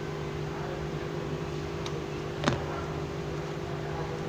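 Steady mechanical hum with a few fixed low tones, with one sharp click about halfway through.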